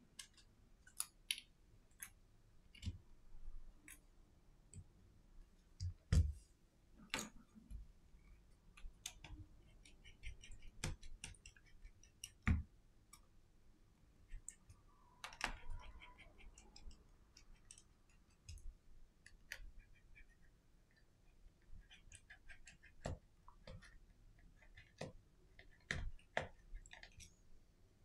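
Small screwdriver, tweezers and the plastic parts of a Redmi Note 10 5G clicking and tapping as the phone is taken apart: irregular small clicks, with a few louder knocks.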